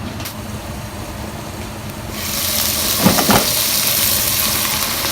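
Shell-on prawns sautéing in a pan. The sizzle turns suddenly loud about two seconds in, as the covered pan is opened, and a couple of short knocks of utensil or lid on the pan follow a second later.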